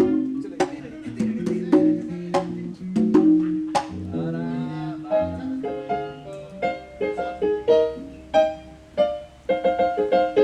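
Live band instruments playing during a sound check: held bass notes under higher melodic notes, with repeated sharp percussive hits.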